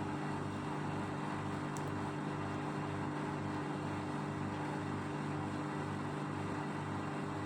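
Steady low machine hum with a throb that repeats about twice a second.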